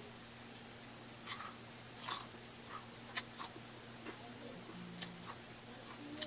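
Close-miked chewing of a crispy breaded fried chicken wing: scattered sharp crunches and wet mouth clicks, the loudest crunch about three seconds in. A steady low hum runs underneath.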